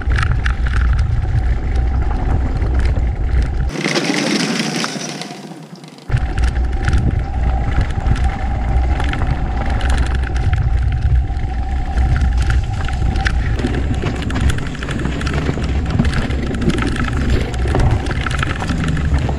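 Electric motorcycle ridden slowly over a rough dirt and gravel trail: a heavy rumble of wind and bumps on the camera microphone, tyres crackling over loose stones, and a faint steady whine from the electric drive. The low rumble cuts out for about two seconds a few seconds in, then comes back suddenly.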